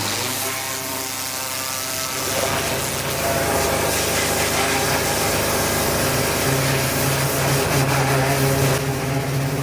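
Pressure washer running, its motor humming steadily under the hiss of the water jet blasting against the Land Rover's aluminium panels, stripping grime and paint. The jet noise grows a little louder about two seconds in.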